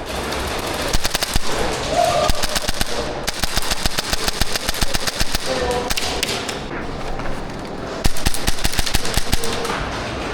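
Airsoft guns firing in rapid full-auto bursts, a fast rattle of shots in three long strings, the loudest near the end.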